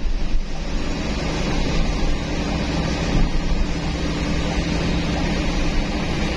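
Intercity bus engine running steadily, a low hum with a rushing noise over it.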